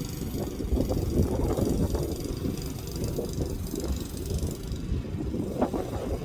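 Lawn mower running, a steady low rumble with irregular rattling and a few clicks.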